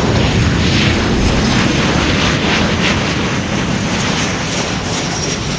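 Boeing 787-9's GEnx-1B jet engines at reverse thrust on the landing rollout: a loud, steady rushing jet noise that has swelled up just before and holds, with a thin high whine coming in near the end.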